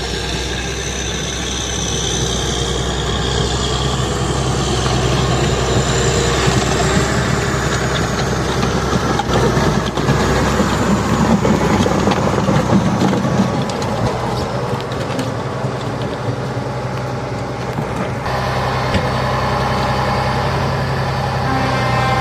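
Heavy diesel engine idling steadily, with a broad hiss over it that changes in character partway through.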